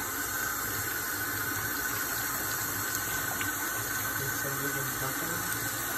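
Water from a sink faucet running steadily, streaming over a hen's back and splashing into a utility sink.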